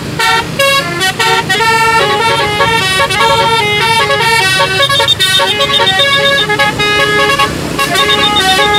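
Bus telolet musical air horn playing a fast melody. Its short blaring notes step up and down in pitch, some are held longer, and there is a brief break near the end.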